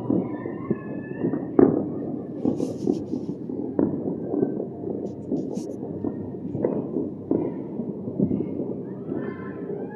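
Fireworks and firecrackers popping and crackling without a break, with sharper bangs about a second and a half, four and seven seconds in.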